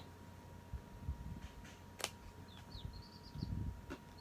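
A small bird chirping faintly in the background, a quick run of short high notes in the second half, over soft handling noises with one sharp click about two seconds in.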